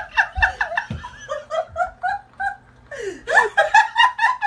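A person laughing hard in quick, high-pitched repeated syllables. The laughter breaks off briefly past the middle and starts again louder.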